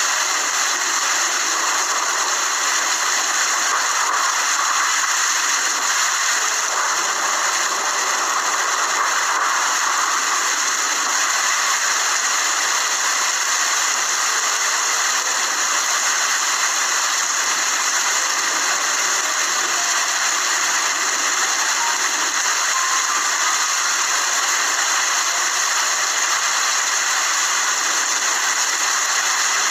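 Steady rain falling, an even hiss with little low rumble and no pauses.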